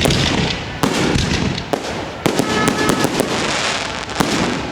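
Aerial fireworks going off: a series of sharp bangs, about five in all, spaced half a second to a second apart. A quick run of cracks comes near the middle, and a steady crackle fills the gaps between bangs.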